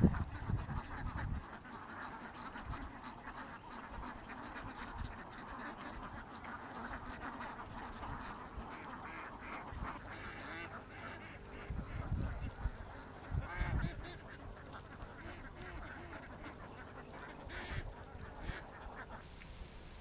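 A large flock of domestic ducks quacking and chattering, many birds calling at once, loudest in the first second.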